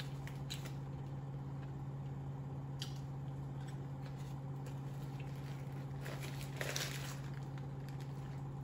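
Close-up eating sounds of someone biting into and chewing a patty melt sandwich on toast: soft, wet squishes and a few faint clicks. There is a brief rustle about two-thirds of the way through, and a steady low hum runs underneath.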